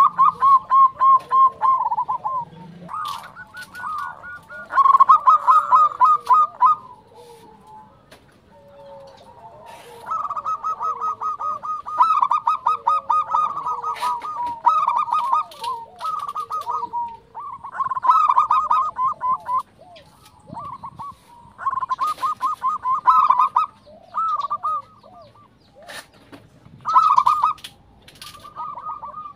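Zebra doves (perkutut) singing: phrases of quick, staccato cooing notes, each phrase a second or two long, repeated over and over with short pauses between.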